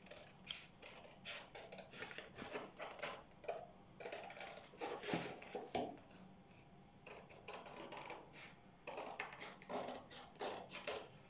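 Scissors cutting through thin cereal-box cardboard: rapid runs of short snips, in about four runs with brief pauses between.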